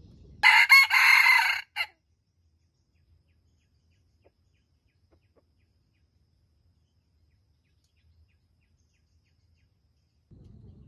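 Red junglefowl rooster crowing once, a short stuttering crow of about a second starting half a second in, with a brief clipped note tacked on at its end.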